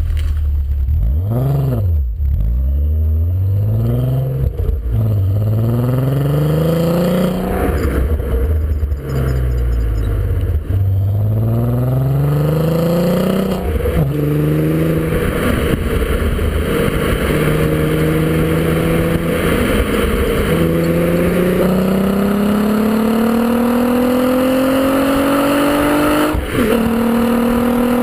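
Volkswagen Golf V R32's 3.2-litre VR6 engine heard at its twin centre tailpipes while driving: the revs climb several times, each climb ending in a sharp drop in pitch at an upshift, then the engine pulls in a slow, steady climb in a higher gear through the second half.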